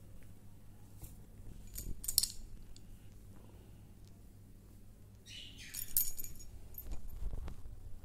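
Pet green-cheeked conure giving two short bursts of shrill, high-pitched chirps, about two seconds in and again about five and a half seconds in.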